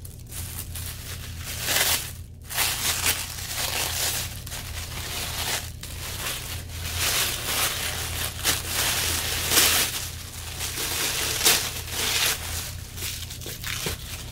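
Plastic wrapping crinkling and rustling as a handbag is pulled out of it, coming and going in irregular surges.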